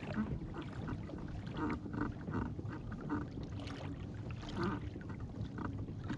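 Wind rumbling on the microphone and choppy water slapping around a kayak, a steady rough noise with a few faint short sounds over it.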